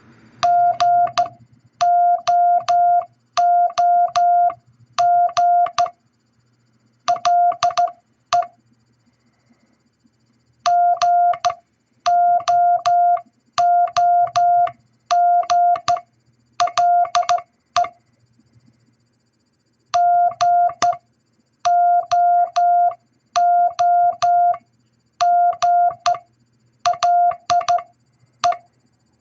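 Morse code tones spelling out "GOOGLE": a single steady beep keyed into short dots and longer dashes, grouped into letters. The word is sent three times, with a longer pause after the first and second runs.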